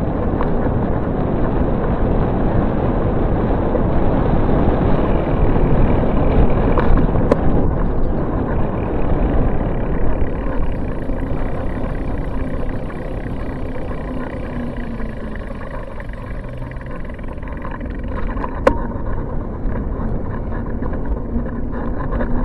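Steady rushing rumble of a bicycle being ridden along a paved cycle path: tyre and road noise mixed with air rushing past the microphone. Two faint clicks break through it.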